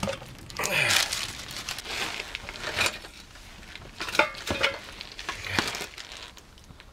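Handling noises from a cardboard whisky box being opened and the bottle slid out, with a few scrapes and knocks, then a stick of wood pushed into a wood stove.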